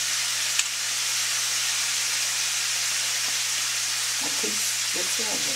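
Chicken wings deep-frying in hot oil: a steady sizzle, with a low steady hum underneath and a single click about half a second in.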